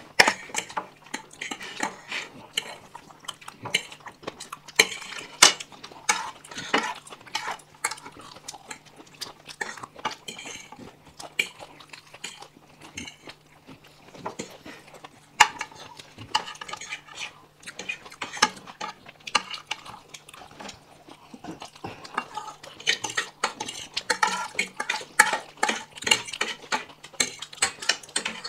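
Forks and spoons clinking and scraping against plates as several people eat fast, in quick irregular clicks.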